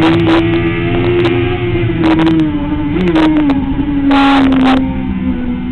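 Sport motorcycle engine running hard at high revs at track speed, holding a steady note that eases slightly lower after about three and a half seconds. Short gusts of wind noise hit the microphone several times.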